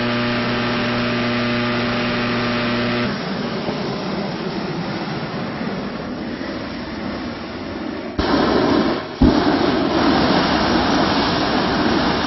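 Hot air balloon propane burner firing into the envelope during hot inflation, a steady rushing blast. It turns sharply louder about eight seconds in and again a second later. A steady machine hum with a pitched tone cuts off about three seconds in.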